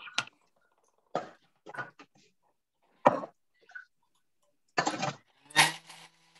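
A quick run of clicks and knocks, about six or seven in all, as a lid and kitchen containers are handled and set down on a countertop beside a Thermomix. A brief low hum comes near the end.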